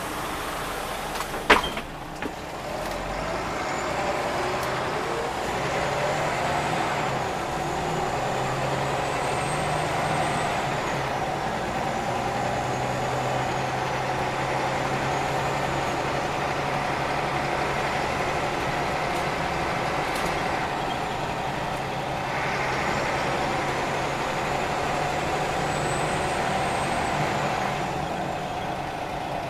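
Scania OmniLink city bus heard from inside its passenger cabin, its diesel engine and drivetrain running steadily while it drives, with a steady whine over the engine noise. A single sharp click about a second and a half in, and the running noise gets louder a couple of seconds later.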